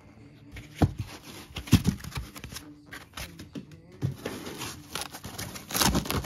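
Clear plastic wrapping being pulled and crinkled by hand, with scattered knocks and scrapes against foam packing; the loudest rustle comes near the end.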